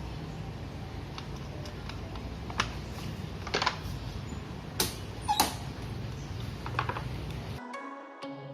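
Drinking water vending machine running with a steady low hum while it dispenses water, with several scattered sharp clicks. The machine sound cuts off suddenly about three-quarters of a second before the end, and background music begins.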